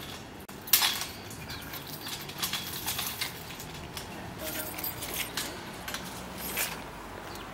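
Metallic clinks and rattles from a wire-grid dish antenna and its feed fittings being handled, a scatter of sharp clicks with the loudest about a second in.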